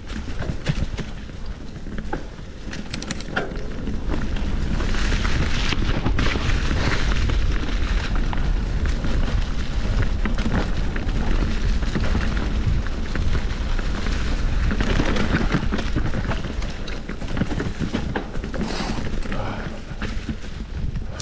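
Wind buffeting the microphone as a mountain bike rolls along a dirt trail, with the bike rattling and clicking over rough ground. The rumble swells about four seconds in as the speed picks up and eases off near the end.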